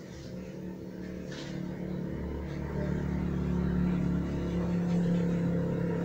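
A steady low machine hum, like a motor running, that swells in level about two to three seconds in and then holds steady.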